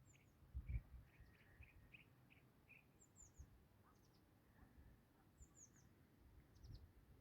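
Faint songbirds: groups of three quick, high, falling chirps about every two to three seconds, with a run of short lower notes in the first few seconds. A few low thumps, the loudest just under a second in.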